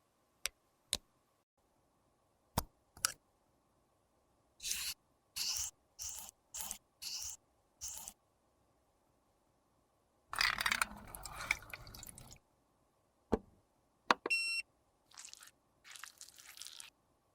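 Close-up handling sounds of makeup work. A few sharp clicks come first, then about seven short scraping strokes, then a longer scrape of about two seconds. Near the end there is a click, a brief ringing clink, and more scraping strokes.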